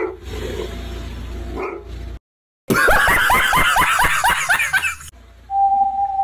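A burst of rapid, high-pitched falling yelps, about five a second for a couple of seconds, comes in suddenly after a brief dropout. Near the end a steady whistle-like tone begins.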